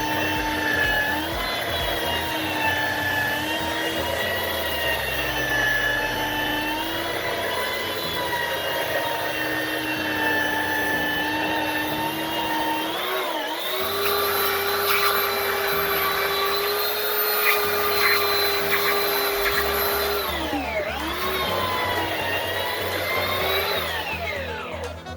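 Chicago Electric 3-inch by 21-inch belt sander's motor running with a steady whine. The pitch steps up about halfway through, dips and recovers twice, and falls away as the motor winds down near the end.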